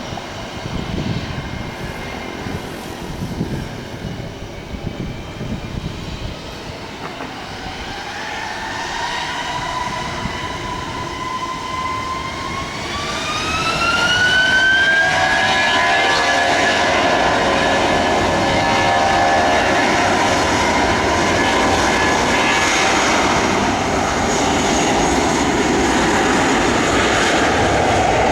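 Jet engines of an Airbus A330 airliner: a rumble with a whine that climbs in pitch about halfway through as the engines spool up, growing louder and then holding steady.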